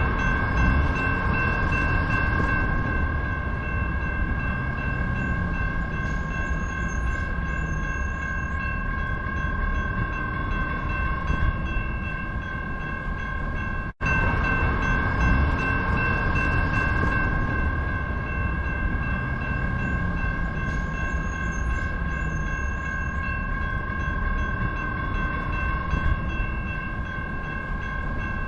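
Railroad crossing warning bell ringing continuously as the crossing gate closes, with a steady low rumble underneath. The sound cuts out for an instant about halfway through.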